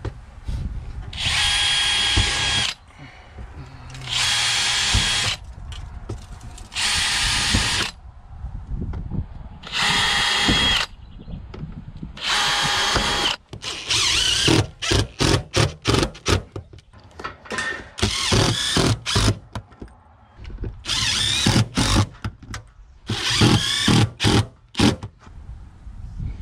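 DeWalt cordless drill driving screws through a Z channel into standing seam metal roofing: the motor whines steadily in runs of about a second each, roughly five times in the first half. After that it comes in quick short stop-start bursts between longer runs.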